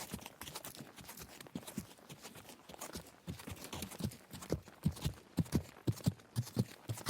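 A horse walking on soft ground: a steady run of dull hoof thuds in a walking rhythm. The thuds get louder from about halfway through.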